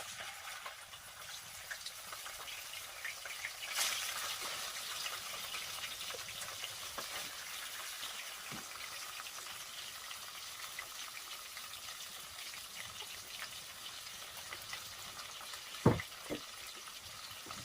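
Chicken frying in hot oil: a steady sizzle with small crackles. A single sharp knock comes near the end.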